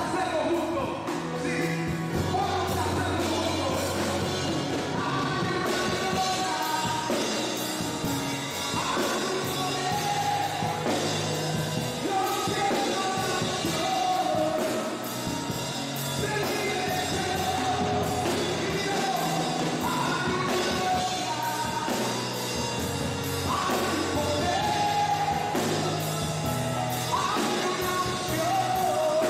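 Live Christian song: a male singer on a microphone with a band of drum kit, bass and keyboard, amplified through a PA in a large gymnasium hall. The singing melody and steady drum beat carry on throughout.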